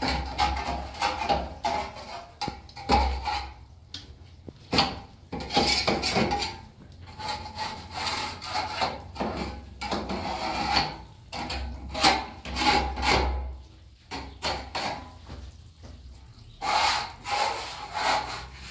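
Irregular scraping and rubbing strokes of a tool worked over a rough plastered wall, a stroke every second or so, some short and some drawn out.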